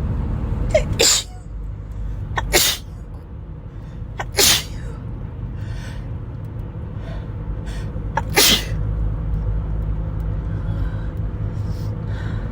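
A person sneezing four times, the first three in quick succession and the fourth after a longer pause, each with a short sharp catch of breath just before it. Under it runs the steady low rumble of a car cabin on the move.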